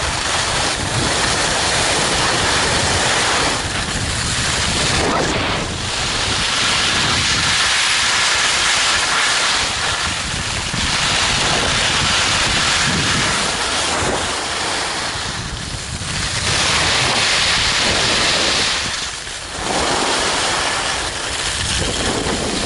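Wind rushing over the microphone of a pole-mounted camera and skis hissing over groomed snow on a downhill run, a loud steady rush that swells and eases every few seconds.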